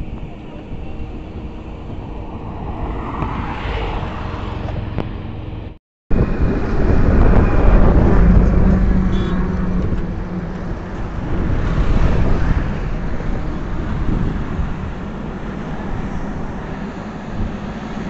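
Construction-site machinery noise. First a distant steady engine hum, then, after an abrupt cut about six seconds in, the louder steady running of heavy diesel machinery at a bored-pile rig, with a low droning tone for a few seconds.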